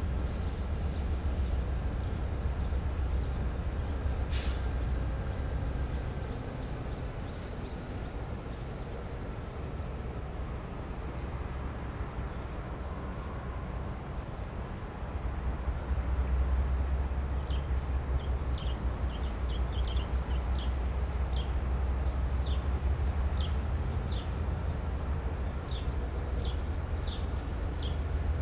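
Amtrak GE Genesis diesel locomotive running as the train creeps toward the track, a steady low rumble that grows louder about halfway through. A single sharp click comes about four seconds in, and a bird chirps repeatedly through the second half.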